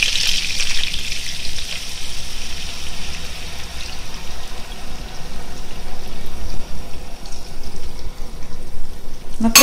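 Fried meatballs sizzling in hot oil in a frying pan. The sizzle dies down over the first couple of seconds as a thin sour-cream and tomato sauce is poured over them, then goes on as a quieter hiss. A few light knocks come near the end as the last of the sauce is scraped from the bowl.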